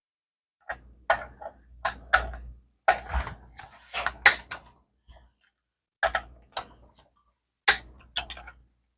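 Sharp metallic clicks and clinks of a wrench and socket as bolts are tightened in torque stages, in small clusters about a dozen times.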